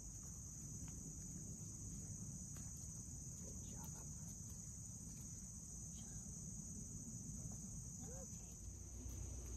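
Steady high-pitched chorus of crickets, an unbroken shrill drone that holds level throughout.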